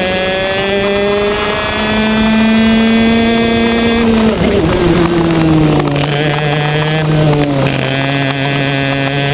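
Racing kart engine heard onboard at close range, revs climbing steadily for about four seconds under acceleration, then dropping sharply as the driver lifts off for a turn, and pulling again at lower revs.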